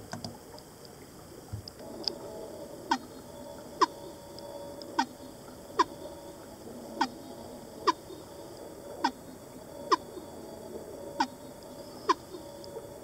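Recording of fin whale calls: short falling pulses repeating about once a second, starting about two seconds in, over a faint steady hum.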